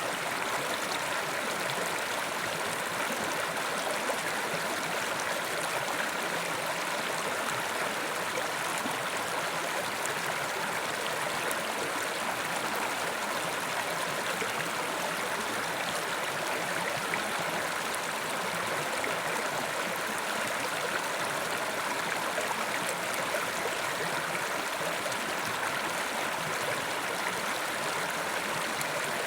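Mountain river rushing steadily over rocks, a constant even noise without pause or change.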